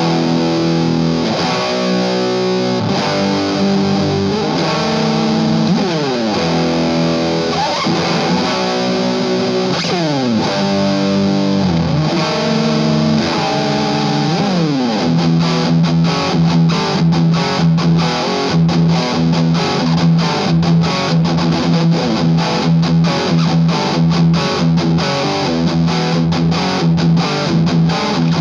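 Electric guitar through a Maxon SM9Pro+ Super Metal distortion pedal, playing heavily distorted metal riffs. Notes slide down several times in the first half, and from about halfway the playing turns to fast, tight chugging with short stops. The pedal is heard at its 9-volt setting and then at 18 volts, with the same control settings.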